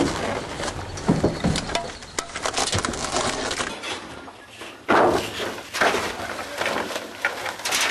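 Garbage being thrown off a truck onto a pile: clattering knocks and bangs of hard debris, with a loud crash about five seconds in.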